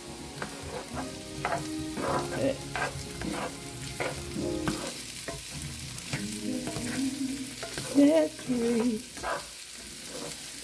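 Diced potatoes, onions and bell peppers sizzling in avocado oil in a cast-iron skillet, while a spatula stirs them with repeated scraping strokes against the pan.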